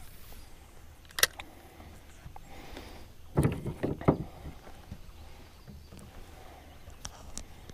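Fishing rods and gear being handled in a fishing boat: a sharp click about a second in, then a cluster of knocks and thumps against the boat around the middle, and a few light ticks near the end.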